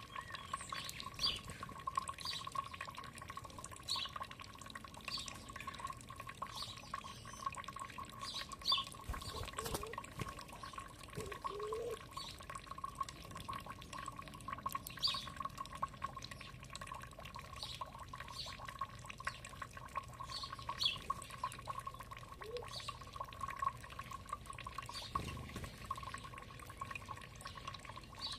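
Small stream of water trickling and dripping steadily. Short high chirps come through roughly once or twice a second, with a few lower notes now and then.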